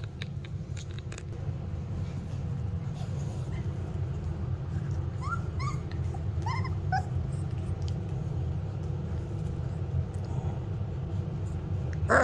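Rottweiler puppy whimpering: a quick run of about seven short, rising yelps in the middle, over a steady low hum, with a few light clicks in the first second or so.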